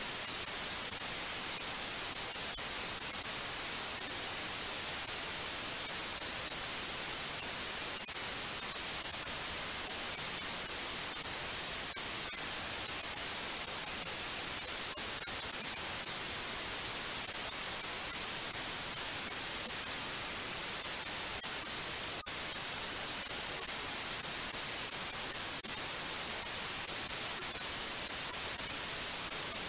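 Steady white noise: an even, unchanging hiss, strongest in the high frequencies.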